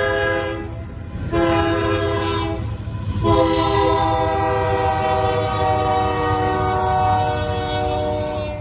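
Union Pacific freight locomotive's air horn sounding for a road crossing: a blast that ends about half a second in, a second blast of just over a second, then a long blast held from about three seconds in until near the end as the locomotive reaches the crossing. A steady low rumble of the train runs underneath.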